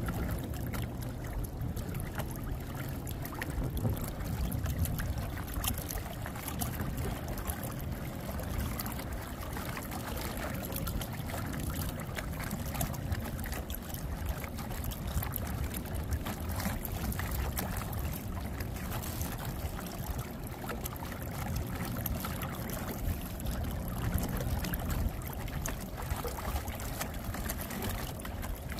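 Water splashing and trickling around the hull of a small inflatable boat cruising slowly under a 12V electric motor, over a steady low rumble.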